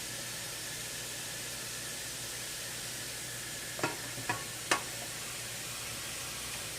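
Steady hiss from a steamer, with three short metal clinks about half a second apart a little past the middle as a cake pan is set into the steamer.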